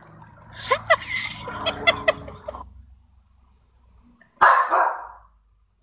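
A small dog barks loudly at an upright vacuum cleaner, a harsh double bark about four and a half seconds in. Before it there are a couple of seconds of clucking calls, then a short lull.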